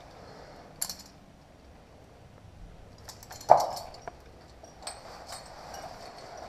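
Scrapes and light clicks of a climber's clothing and rack of carabiners rubbing and knocking against sandstone while squeezing through a narrow rock tunnel, with one louder short thud about three and a half seconds in.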